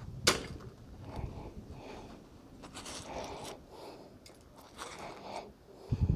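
A sharp clink about a third of a second in as a found piece of scrap iron is dropped into the finds bucket, followed by scraping and rustling as the muddy fishing magnet and its rope are handled, with a low thump near the end.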